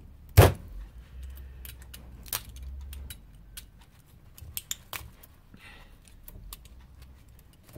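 Knife blade scraping and picking at the paper insulation on a small transformer's copper winding: scattered small clicks and scratches. One sharp knock comes about half a second in.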